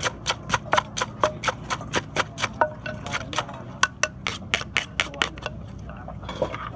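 Pestle pounding som tum (papaya salad) in a mortar: steady, even knocks at about four a second that stop about five and a half seconds in.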